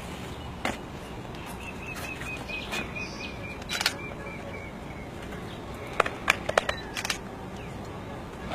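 Camera shutters clicking: scattered single clicks, then a quick run of four or five clicks about six seconds in. A bird calls a fast, even series of high chirps, about five a second, from about two seconds in to about four and a half seconds.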